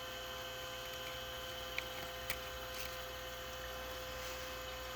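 Perkin Elmer 198072 furnace cooling chiller running: a steady hum from its fan and glycol-water circulating pump. Two short clicks come about two seconds in, half a second apart.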